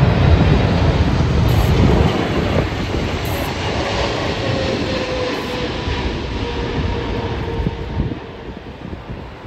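Jet airliner passing on its landing, a loud rumble with a faint whine that falls slowly in pitch, fading about eight seconds in.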